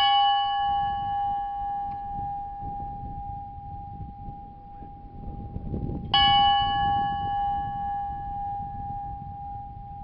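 A church bell struck twice, about six seconds apart; each stroke rings on with several overtones and fades slowly.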